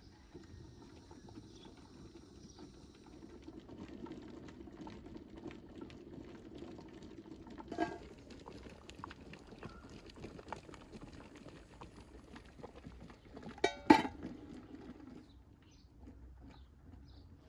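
Large aluminium stockpot simmering on a wood-burning stove, a steady low bubbling with fine crackles. Its metal lid clinks as it is handled about eight seconds in, and a louder, sharp clank of metal comes about fourteen seconds in.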